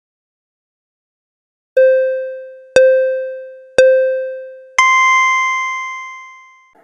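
Electronic countdown beeps: three short low beeps about a second apart, then one longer beep an octave higher that fades out, marking the end of the time to guess.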